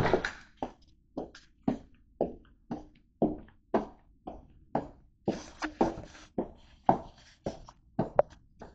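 Footsteps of someone walking in flip-flops on a hard floor: a steady slap about twice a second.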